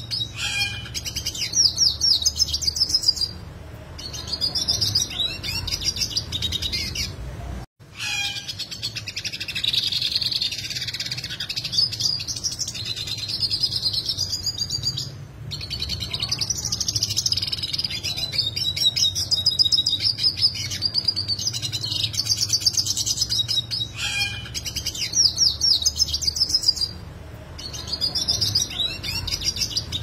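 Yellow siskin singing a long, rapid twittering song full of fast, sharp trills, in phrases broken by a few short pauses, over a low steady hum.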